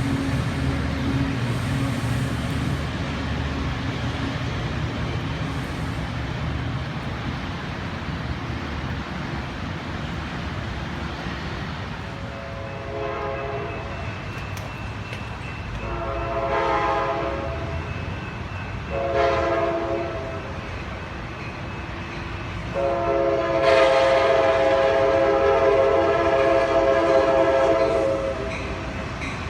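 A train's multi-note chord horn sounding two long blasts, a short one and a final long blast of about five seconds, the standard grade-crossing signal, over the steady rumble of the train.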